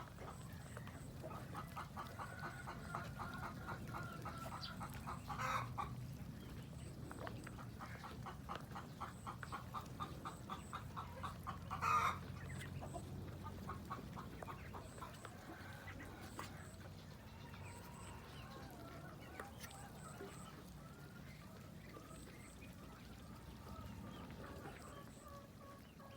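Domestic fowl calling: runs of rapid, pulsing clucking trills, with two louder calls about five and twelve seconds in, then quieter calling.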